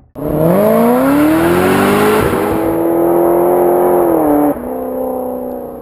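Car engine revving up, its pitch climbing for about two seconds, then holding high before it drops suddenly about four and a half seconds in and runs on at a lower pitch.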